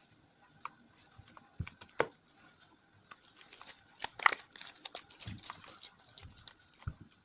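Homemade glue-and-borax slime being worked and stretched, giving scattered sticky clicks, snaps and crackles that are thickest midway through.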